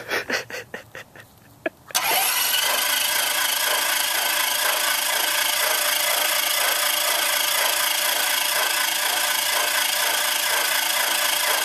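Lycoming IO-360 aircraft engine being turned over by its starter motor without firing, to build oil pressure before the first start. After a few short bursts in the first two seconds, it cranks steadily with an even, regular pulsing; no oil pressure has come up yet.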